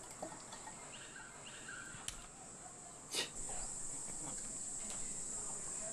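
Steady high-pitched insect chirring, with faint handling noises of bokbunja (black raspberry) juice being poured through a funnel into plastic bottles, including two light knocks about two and three seconds in.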